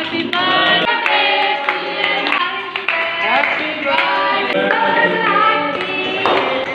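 A song with singing voices and music, going on steadily throughout.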